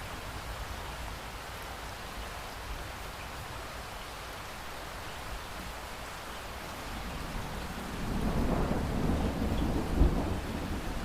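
Steady heavy rain, with a roll of thunder building from about seven seconds in and loudest near the end.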